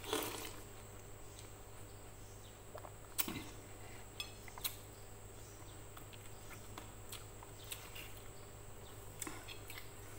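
Noodles slurped briefly right at the start, then a few scattered light clinks of a metal fork and spoon against a plate.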